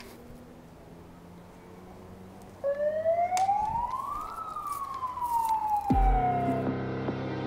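A single siren wail: after a few quiet seconds it starts abruptly, climbs steadily in pitch for about two seconds and then slides back down over the next two. Music comes in near the end.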